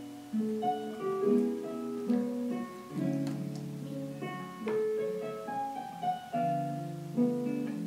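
Instrumental background music led by piano, a steady run of melodic notes.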